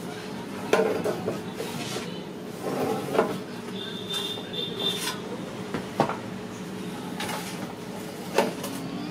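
Metal baking trays knocking and scraping against the steel deck oven as they are pulled out with a rod, with a few sharp clanks and a short high squeal of metal on metal near the middle, over a steady background hum.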